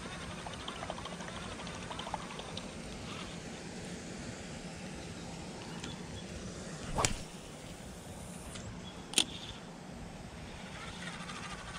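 A spinning rod swishing through the air in a cast about seven seconds in, then a single sharp click about two seconds later, over a steady outdoor background.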